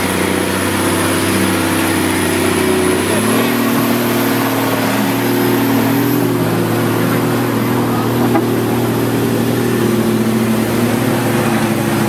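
Engine of a competition 4x4 trial vehicle working through deep mud, running at steady revs with a shift in pitch about three seconds in.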